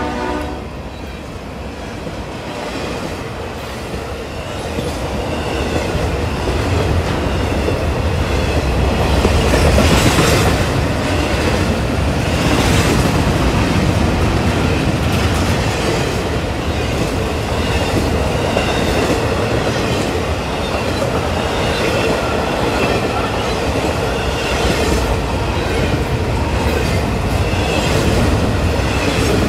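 Double-stack intermodal freight train rolling past close by: a steady rumble of wheels on rail that grows louder over the first few seconds, with repeated clicks over the rail joints and a faint high wheel squeal.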